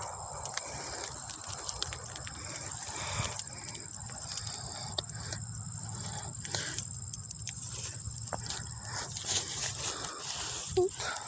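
Steady high-pitched chorus of singing insects such as crickets, one unbroken trill, with a low rumble underneath.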